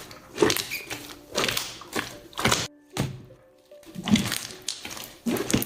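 Background music with a soft thunk about once a second.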